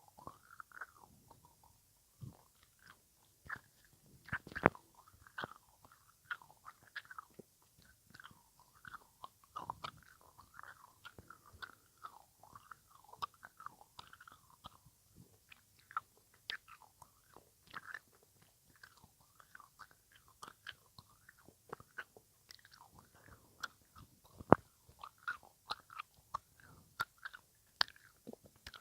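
ASMR mouth sounds close to the microphone: an irregular stream of short wet clicks, smacks and tongue pops, with two sharper, louder clicks, one about four and a half seconds in and one near twenty-four seconds in.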